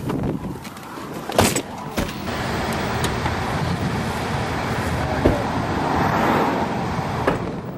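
Storm chasers' car: two sharp knocks about a second and a half and two seconds in, then a steady rush of wind and car noise that swells and eases near the end, as the car pulls away from an approaching tornado.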